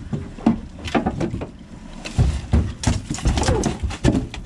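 Irregular knocks and thumps as a king salmon is hauled aboard in a landing net, the net and the thrashing fish bumping against the boat's side and deck.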